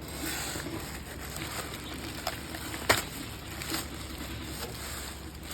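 Product packaging being handled and opened: rustling with a few clicks, one sharp click about three seconds in, over a steady low hum.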